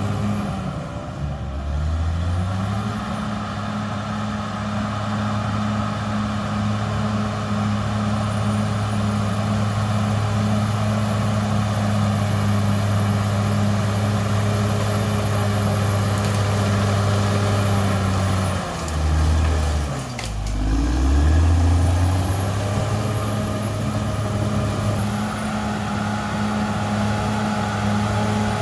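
Cat D6R XL bulldozer's diesel engine running steadily under load. The engine note drops and recovers about a second in, and again for a couple of seconds near two-thirds of the way through. A faint high whine comes and goes.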